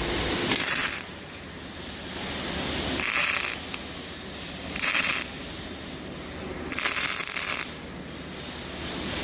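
Four short bursts of hissing, scraping noise, each about half a second long and roughly two seconds apart, over a low steady background hum.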